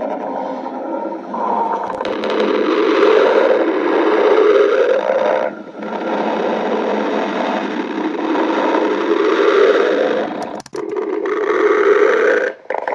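A person's stomach growling: long stretches of shifting rumbling, broken by two brief pauses, one about halfway through and one near the end.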